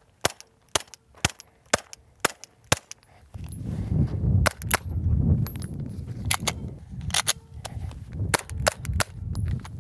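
Suppressed 9mm pistol firing full metal jacket rounds into a body-armor vest: an even string of about six shots, roughly two a second, with the muzzle pressed against the vest. After a brief gap, more shots come at an uneven pace over low wind rumble on the microphone.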